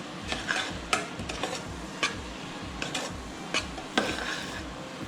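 Onions and spices sautéing in ghee in a pressure cooker pot, stirred with a utensil: irregular sharp scrapes against the metal pot about once a second over a low sizzle.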